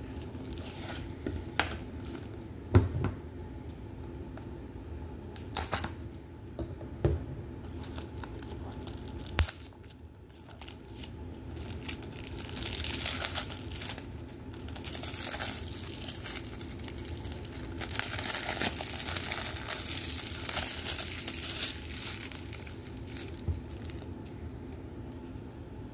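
Plastic shrink wrap being picked at and torn off a Blu-ray case. A few sharp clicks and taps of the case being handled come first, then about ten seconds of crinkling and tearing from around halfway through.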